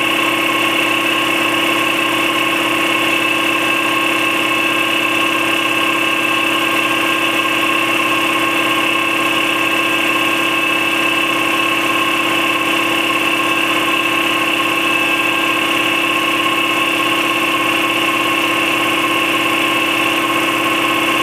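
Campbell Hausfeld 60-gallon twin-piston air compressor with a 3.2 hp 240 V motor, running steadily as it pumps the tank up. It is near the end of its fill from empty, close to its 135 psi shut-off.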